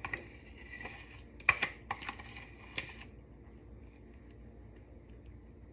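A spoon clicking and scraping against a plastic sour cream tub as a dollop is scooped out: a few light clicks in the first three seconds, the sharpest about one and a half seconds in, then only faint handling.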